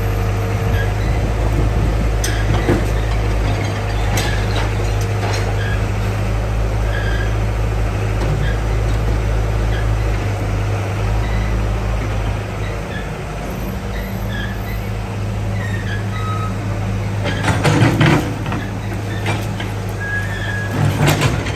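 Excavator engine running steadily, with a few sharp knocks and crashes as debris is handled, the loudest two bunched near the end.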